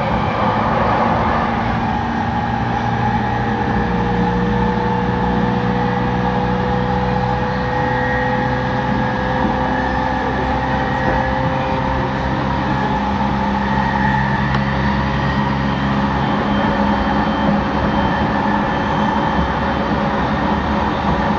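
E231 series suburban electric train standing at the platform, its onboard electrical equipment humming with several steady tones. The lowest hum stops about sixteen seconds in.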